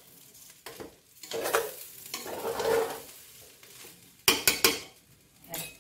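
Steel spatula stirring and scraping frying rice in a stainless steel pot, with a light sizzle. A little past four seconds in come about four sharp metal knocks of the spatula on the pot, and one more near the end.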